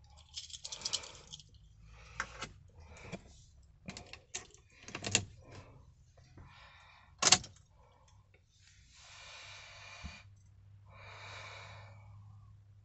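Ignition keys jangling with a series of clicks and rustles as the key is handled and turned in the ignition, one sharp click about seven seconds in being the loudest; the ignition is switched on with the diesel's glow-plug lamp lit, just before cranking.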